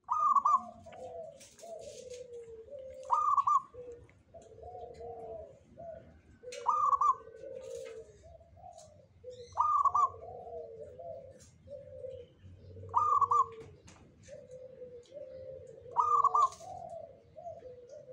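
Zebra dove (local perkutut) cooing: six repeated song phrases about three seconds apart. Each phrase opens with a loud higher note and then runs on in a string of lower, rolling coos.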